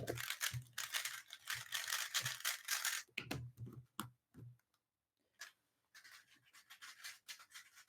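3x3 speedcube being turned fast: rapid runs of plastic clicking and scraping, dense for the first few seconds, thinning out with a short pause partway through, then picking up again.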